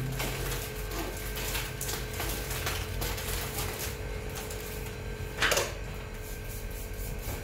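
Soft rustling and handling of bouquet wrapping paper and cellophane, with scattered light clicks and one louder rustle about five and a half seconds in.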